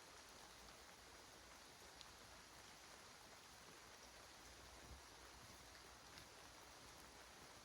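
Near silence in a rain-soaked forest: a faint steady hiss with a few soft ticks of dripping water, about two, five and six seconds in.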